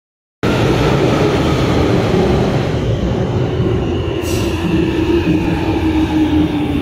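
A London Underground Jubilee line train pulling into the platform and slowing: a steady rumble of wheels and running gear with a motor whine that falls slowly in pitch as it brakes. A short hiss about four seconds in.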